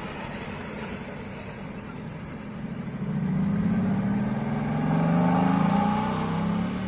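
A car engine accelerating, growing louder with rising pitch about halfway through and easing off slightly near the end.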